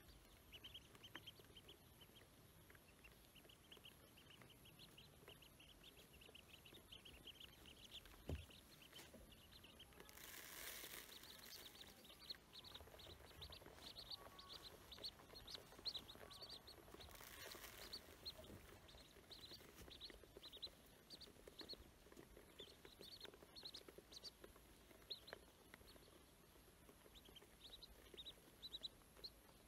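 A group of ducklings peeping: a steady stream of short, high peeps, with two brief rushes of noise near the middle.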